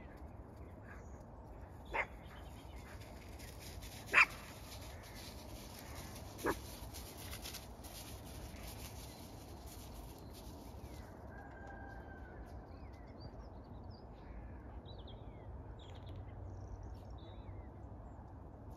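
A dog barks three times, short sharp barks about two seconds apart, the middle one loudest.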